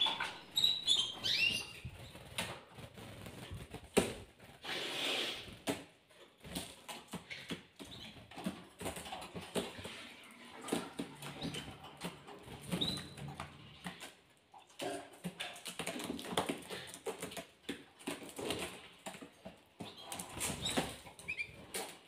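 Pet canaries moving about and feeding on a hard floor: light wing flutters, pecking and hopping taps, with a few short high chirps.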